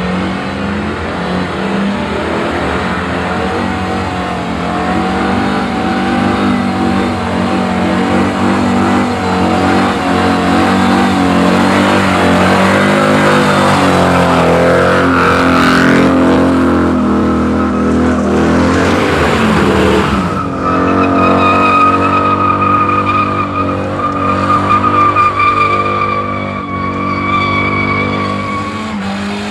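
A car doing a burnout: the engine held at high, fairly steady revs while the spinning tyres squeal, with a noisier stretch midway and a high, steady tyre squeal through the last third.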